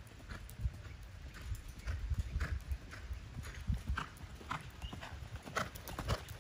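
Horse loping on the soft dirt of a round pen: a steady run of muffled hoofbeats in the lope's rolling three-beat rhythm.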